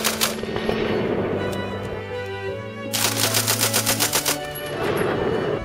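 Lewis light machine gun firing in bursts at about ten rounds a second: the tail of a short burst right at the start, then a burst of about a second and a half near the middle. Orchestral background music plays under the gunfire.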